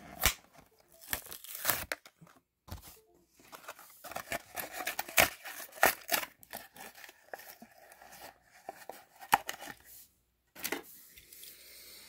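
Hot Wheels blister card being torn open by hand: the cardboard backing ripping and the plastic blister crinkling, in a run of short, irregular tearing and crackling sounds.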